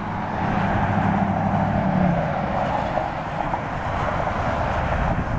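Jet airliner's engines heard across the airfield as a steady rumble while it rolls out on the runway just after touchdown; a deeper part of the rumble fades about two seconds in.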